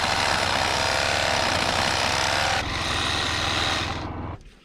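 A power tool running loud for about four seconds, its sound changing about two and a half seconds in, then stopping. A steady low hum runs under it and cuts out just after.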